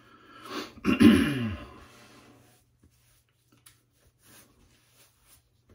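A man's short throat-clearing grunt about a second in, falling in pitch. Faint soft taps and rustles of a washcloth against the face follow.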